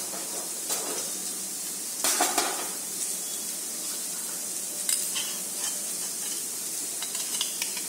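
Hot cooking oil sizzling in a steel kadai, heated ready for frying fish, with a few short clicks and knocks, the loudest about two seconds in.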